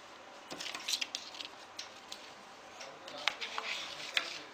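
Light clicks and taps of small plastic connectors and wire ends being handled on a table: a cut USB cable and a USB OTG connector picked up in the fingers, about half a dozen separate clicks.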